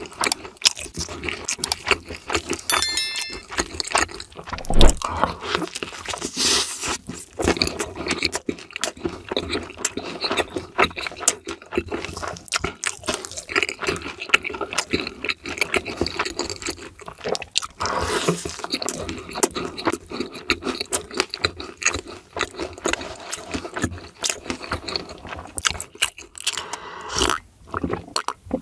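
Close-miked crunching and chewing of crispy fried food, a dense run of irregular crackles, with one loud crunch about five seconds in.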